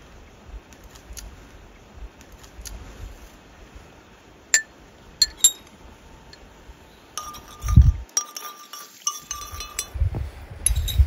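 Metal teaspoon clinking against a ceramic tea cup as tea is stirred: a few sharp clinks about halfway, then a run of ringing chinks. Low gusts of wind on the microphone come in twice in the second half.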